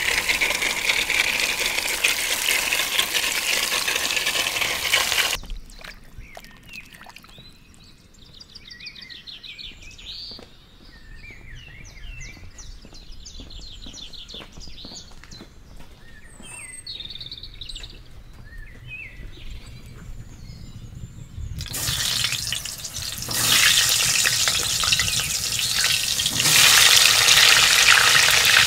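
Water spraying from a garden hose into a plastic bowl of potatoes, rinsing them; it cuts off sharply about five seconds in. Birds sing rapid chirping trills in the quieter middle stretch. From about 22 seconds in, potato chunks fry in hot oil in a pan with a loud, steady sizzle that grows louder in steps.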